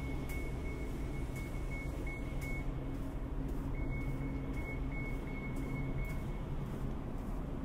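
Steady low mechanical hum under a high-pitched electronic beep that repeats rapidly, stops for about a second midway, then resumes and fades out near the end. Footsteps sound about once a second.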